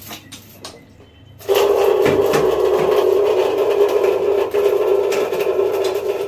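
Water draining in a thin stream from the inlet fitting of an electric water heater's tank and splashing below, a loud steady rushing with a held tone that starts suddenly about a second and a half in.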